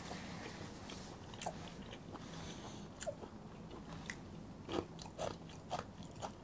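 A person chewing raw croaker sashimi with the mouth closed: soft wet mouth clicks and smacks, more of them together about five seconds in.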